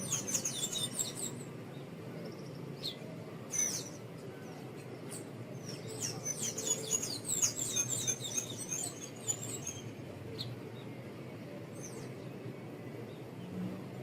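Small songbirds chirping and twittering in quick high notes, in a burst at the start and a longer one from about six to nine seconds in, over a steady low hum.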